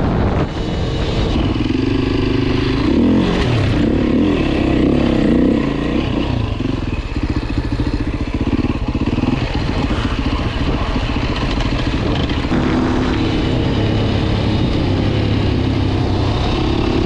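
Beta RR 450 enduro bike's four-stroke single-cylinder engine heard from on board while riding, revving up and down in the first seconds, running choppy on and off the throttle through the middle, and steadier near the end.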